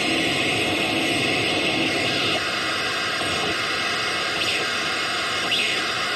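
Strange sound machine putting out a steady wash of static-like hiss, with faint rising sweeps about four and five and a half seconds in.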